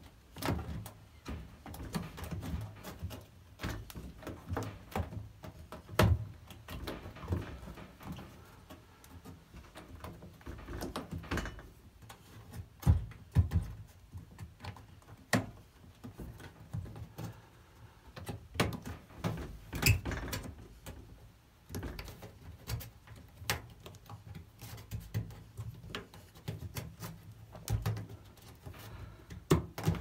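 Rubber door seal of a Bosch/Siemens washing machine being worked by hand into the groove of the front panel: irregular soft thumps, knocks and rubbing as the seal lip is pressed in around the door opening.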